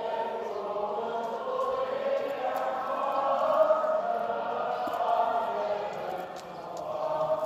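Orthodox church chant sung by a group of voices, the slow sustained melody of a parastas memorial service. It comes in abruptly at the start, dips for a moment about six seconds in, then swells again.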